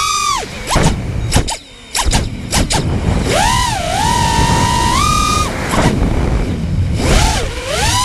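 Brushless motors and props of a 5-inch FPV racing quad (Armattan Titan 2306 2450 kV motors on 5045 props) whining, the pitch rising and falling with the throttle. Between about one and three seconds in the throttle is chopped and punched in short stabs with a brief near-drop-out, then the whine swoops down and climbs back to a steady high pitch, dipping again near the end, over a low rush of air.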